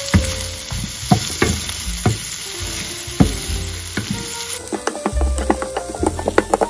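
Sliced red onions sizzling in melted butter in a frying pan while being stirred with a wooden spoon, which gives short knocks and scrapes against the pan every half second or so.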